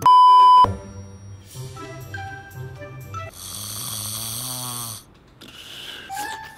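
A loud, steady beep tone lasts just over half a second at the start. Then comes light background music, with a cartoon snoring sound effect over it from about three to five seconds in.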